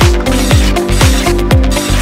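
Electronic dance background music with a steady kick drum about twice a second.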